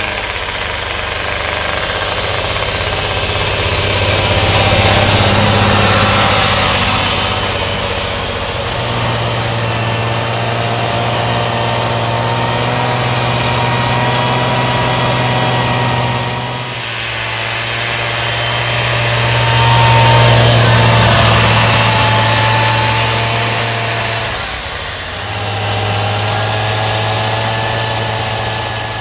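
Snowmobile engine running under way through snow, its pitch stepping up about a third of the way in and dipping briefly twice, about halfway and near the end, before picking up again, with a steady hiss over it.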